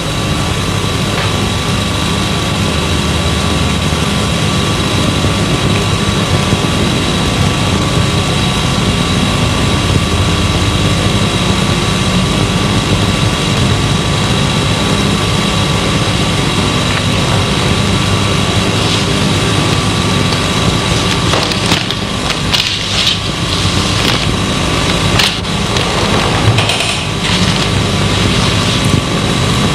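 Steady hum and hiss of an old analog tape recording, with a cluster of sharp slaps in the second half: a performer's hand strikes during a Tongbei boxing form.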